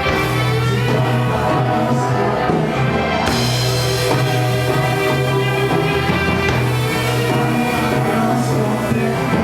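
Psychedelic rock band playing live: an instrumental passage with a steady held bass note under dense guitar and drums, growing fuller about three seconds in.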